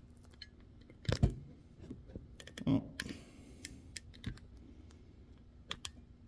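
Light clicks and taps of a screwdriver and small metal parts at an open tractor distributor as a breaker-point screw is taken out, with two louder knocks, about a second in and near the middle.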